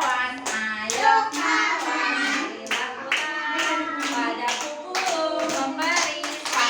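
A group of young children singing together with steady rhythmic hand-clapping, about two claps a second.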